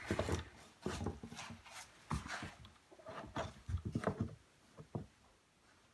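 Vinyl flooring plank being slid into a plank cutter and lined up: a string of irregular knocks and scrapes that die away near the end.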